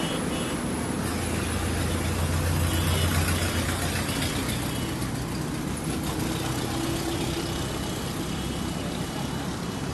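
Roadside traffic noise: a large vehicle's engine running with a low hum that is strongest in the first few seconds, over a steady wash of road traffic.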